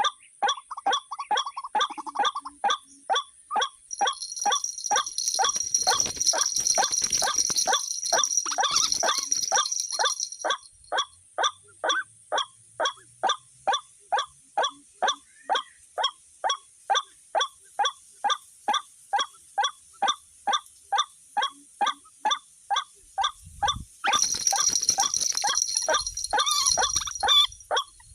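White-breasted waterhen (ruak-ruak) call, short 'wak' notes repeated very evenly about twice a second, as used to lure the birds. A high hiss joins in from about four seconds in until about ten seconds, and again near the end.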